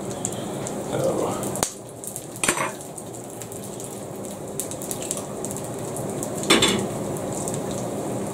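Oil sizzling in frying pans with a haggis slice frying, while an egg is cracked against a small frying pan and dropped into its hot oil: a sharp crack about a second and a half in, then a few knocks and a louder clatter later.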